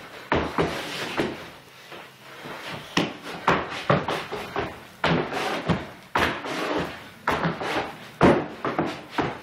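Shoes stomping and tapping on a hard floor during quick dance footwork, sharp knocks coming in fast irregular runs with a quieter stretch about two seconds in.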